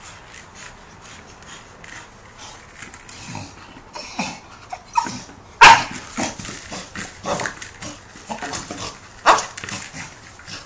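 A blue Staffordshire bull terrier playing with a tough dog ball: the dog's breathy play noises mixed with a run of sharp knocks as it mouths and shoves the ball. The loudest knock comes about halfway through, with another strong one near the end.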